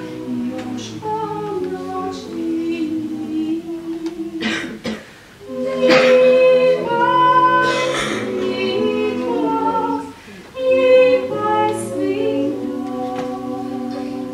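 Small mixed vocal ensemble of five, four women and a man, singing a cappella in close harmony: held chords sung in phrases, with brief pauses about five and ten seconds in, each followed by a louder entry.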